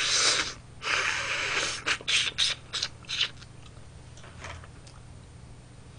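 Close-up eating sounds of a person sucking meat out of a lobster shell: two long slurps, then about six short crunching, smacking chewing sounds.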